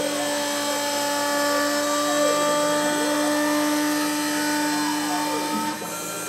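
CNC engraving machine cutting a circular outline into a sign plate: a steady spindle whine under tones that glide up and down as the head moves along the curve. The sound eases off a little near the end, as the circle is completed.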